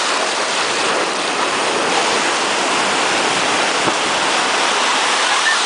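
Ocean surf breaking and washing over shallow water at the shoreline, a steady rushing.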